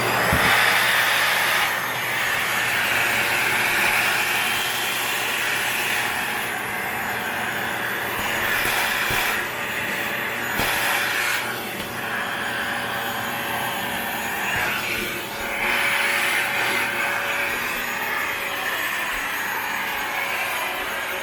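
Panasonic paper-bag canister vacuum cleaner running steadily with its narrow nozzle, just after being switched on. The suction note rises and dips now and then as the nozzle is worked into corners and along the carpet edge.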